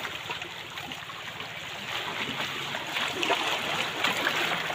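Small waves washing and lapping against shoreline rocks, a steady watery wash with a couple of slightly louder splashes about three and four seconds in.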